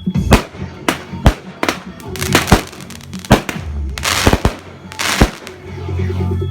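Fireworks going off: a string of sharp bangs, roughly ten over a few seconds, with a denser cluster of bangs about four seconds in.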